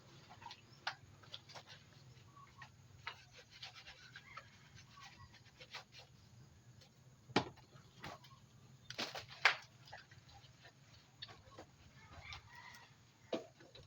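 Chickens clucking now and then, amid scattered sharp clicks and knocks, the loudest about halfway through and twice shortly after, over a faint steady low hum.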